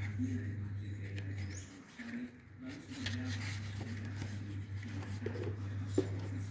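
Paper pages of a printed instruction booklet being flipped and rustled by hand, with a sharp click about six seconds in as a plastic packing tray is handled, over a steady low hum.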